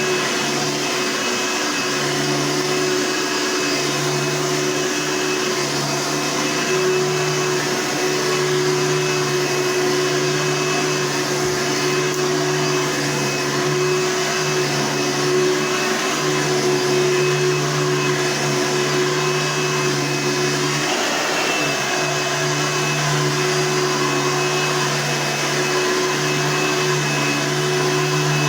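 Late-1980s Hoover Deluxe Top Fill upright vacuum cleaner running steadily with a constant motor hum and whine. Its note dips and wobbles briefly about three-quarters of the way through.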